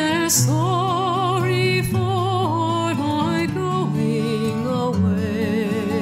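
Background music: a singing voice with strong vibrato over sustained low accompanying notes.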